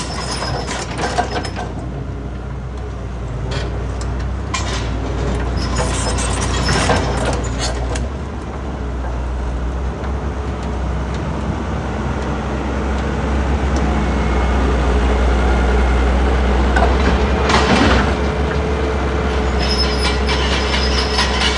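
Rock crusher running: a steady low mechanical drone, broken several times by short bursts of cracking and crunching as stones are crushed.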